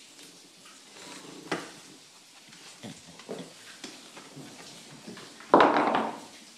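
Two English bulldogs tussling over a rope toy in play tug of war, making scattered short noises. Near the end comes one loud, rough sound lasting under a second.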